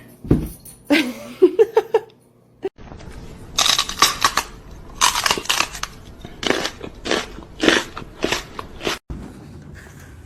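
A run of irregular crunching noises, several a second, like something hard being bitten or crushed. A thump and a short pitched call come just before.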